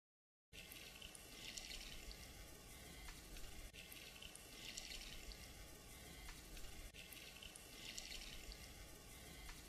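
Water pouring from a plastic watering can onto a concrete clothesline base and the soil around it, wetting the concrete mix to set it. The pour begins about half a second in and swells three times.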